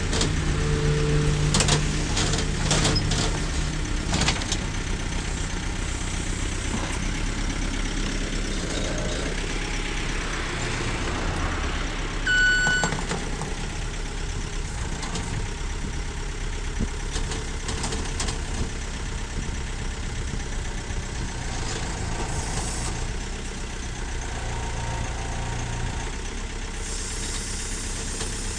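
A vehicle engine running steadily at low revs, with a few knocks in the first seconds and one short beep about twelve seconds in.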